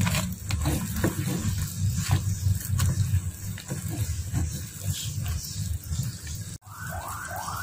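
A wooden spatula stirring and scraping fried cassava cakes through bubbling sugar syrup in a frying pan, with light knocks and scrapes about twice a second over a low rumble. Near the end, a repeating rising electronic chirp starts, about two a second.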